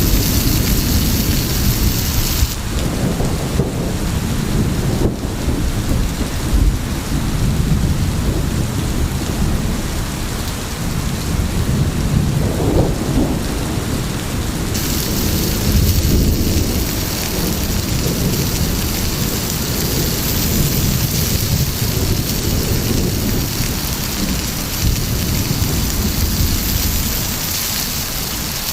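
Heavy rain falling steadily with low rumbles of thunder.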